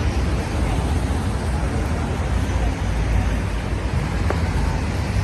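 City street traffic in a jam: a steady low rumble of many vehicle engines with road noise.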